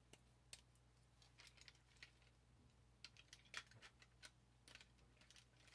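Faint, irregular small clicks and snaps of plastic parts and joints on a Transformers Siege Ultra Magnus figure being transformed by hand.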